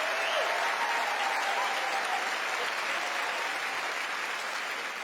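Large audience applauding steadily, with a few voices calling out over it near the start; the clapping eases off slightly towards the end.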